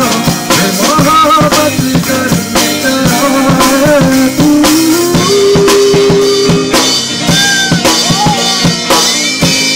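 Live rock band playing: a drum kit hit steadily with snare, kick drum and cymbals under an electric guitar's shifting melodic line.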